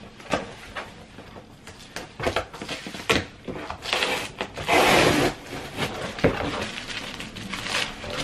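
Packaging being handled by hand: a plastic bag crinkling and paper rustling, with scattered taps and clicks and a longer, louder rustle about five seconds in.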